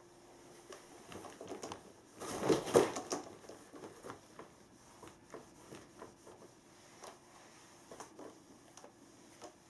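Rustling and crinkling of a pop-up nylon cat tunnel being pushed and jostled, loudest in a burst about two to three seconds in, then scattered light taps and scrapes.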